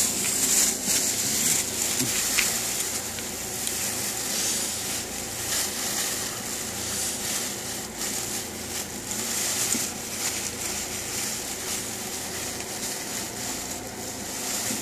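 Large plastic-wrapped bales rustling and crinkling as a man climbs and kneels on them, a continuous crackly rustle. A steady low hum runs underneath.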